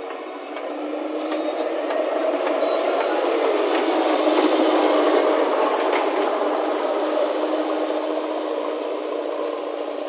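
JCB backhoe loader's diesel engine running as the machine drives past with a loaded front bucket, growing louder until about halfway through and then fading as it moves away.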